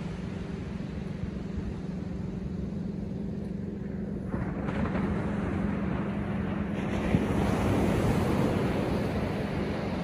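Atlantic surf breaking on a sandy beach: a wave crashes and washes up the shore, swelling from about four seconds in and peaking near eight seconds. A steady low hum runs underneath.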